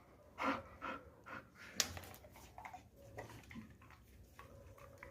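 Bull terrier panting and breathing in short, irregular bursts, with a sharp click about two seconds in.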